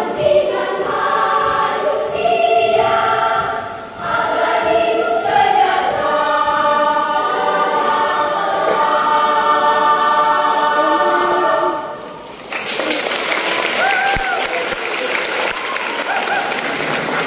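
Children's choir singing in several parts, ending on a held chord about twelve seconds in, then the audience breaks into applause.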